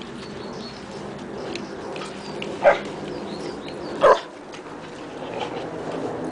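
A dog barking twice, two short loud barks about a second and a half apart.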